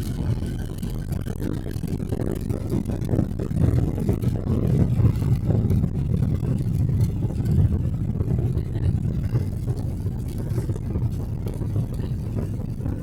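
Cabin noise inside a Boeing 777-300 airliner: a steady low rumble of engines and airflow, swelling and easing slightly in loudness.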